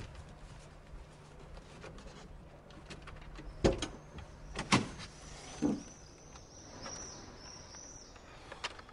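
Three loud knocks about a second apart among scattered small clicks and rattles, followed by a run of high, repeated chirps.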